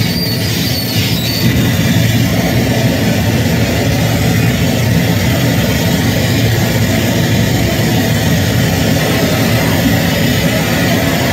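Live harsh noise music over a club PA: a loud, steady, dense wall of rumbling noise, heaviest in the low end, with a few brief high squeals near the start.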